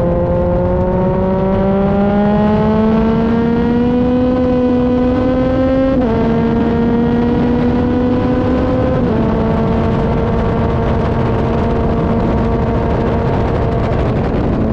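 Motorcycle engine under hard acceleration, its pitch climbing steadily, then dropping with an upshift about six seconds in and another about three seconds later, after which it holds a steady note, with wind noise over the microphone.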